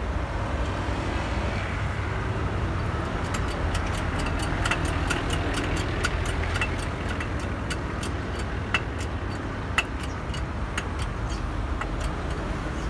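Steady low vehicle rumble from motor traffic or an engine running, with scattered sharp clicks and taps of metal work under a truck during a flat-tyre change.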